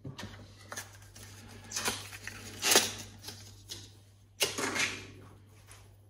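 Hands handling a laptop-size RAM stick and its plastic packaging: scattered short rustles and clicks, the loudest a little before halfway and another cluster about three-quarters through.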